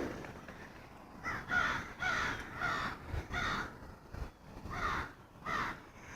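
Crows cawing: a run of about eight harsh caws, each dipping in pitch, with a pause about four seconds in before two more.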